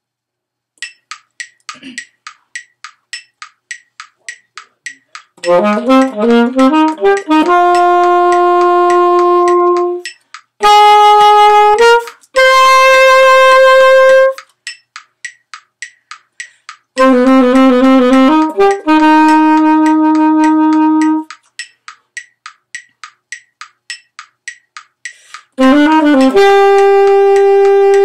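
Alto saxophone playing short phrases with pauses between them, each a quick run of climbing notes that settles on a long held note, over steady clicks about twice a second from a metronome.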